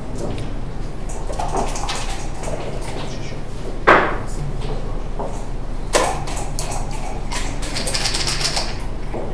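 Backgammon checkers clicking as they are slid, picked up and set down on the board, with a sharp knock about four seconds in, a smaller one about six seconds in, and a run of light clicks near the end, over a steady low hum.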